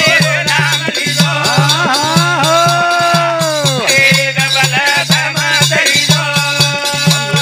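Banjara devotional bhajan: a man singing long, gliding melodic lines over a steady rhythmic beat with rattling percussion.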